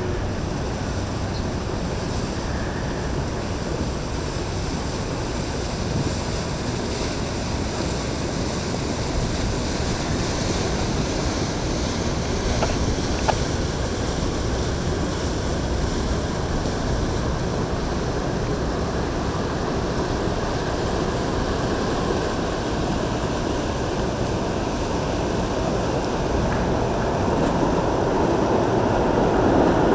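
Steady rush of wind and water around a boat on the water, with wind buffeting the microphone. A rumble swells louder in the last few seconds.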